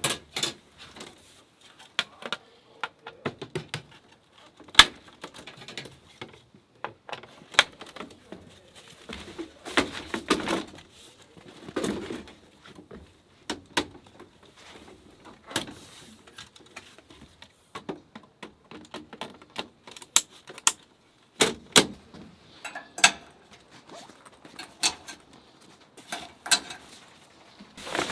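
Camping gear being handled and set out: an irregular run of sharp clicks, clacks and light knocks, with brief rustling in between.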